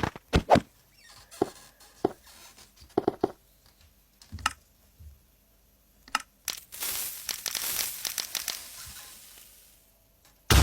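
Scattered light clicks and taps, then a few seconds of rustling, crinkling noise, like paper or plastic being handled, fading out near the end.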